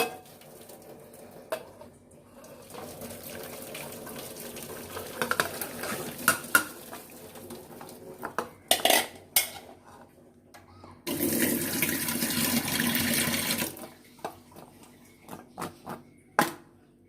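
Water pouring steadily for about two and a half seconds, with clinks and knocks of metal kitchen utensils and pots before and after it.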